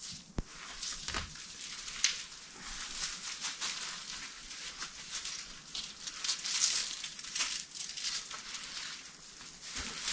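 Cucumber vines being pulled down and handled, leaves and stems rustling and crinkling in many small irregular crackles; the plants are limp and wet.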